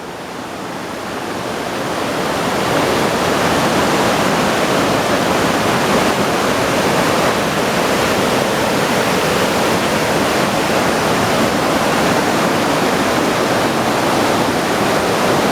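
Waterfall running full after rain, a steady loud rush of falling water.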